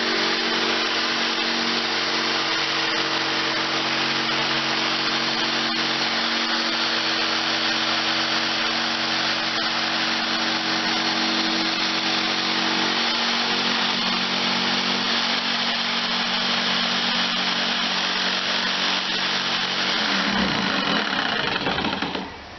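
Handheld electric power tool running continuously under load, a steady whirring hum over a harsh grinding noise. The sound shifts near the end and cuts off.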